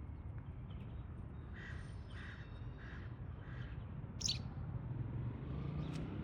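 A bird calling four times in a row, short hoarse calls about half a second apart, over a steady low rumble. A sharp click comes shortly after.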